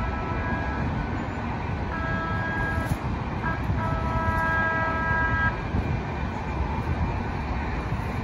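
Distant light-rail trolley horn sounding three times: a short toot, then one of about a second, then a longer blast, each several pitches at once. A steady low rumble of traffic runs underneath.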